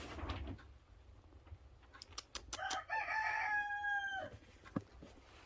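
A rooster crowing once: a single drawn-out call of about a second and a half that rises, then holds and slowly falls, a little past the middle. A few sharp clicks come just before it and a single knock near the end.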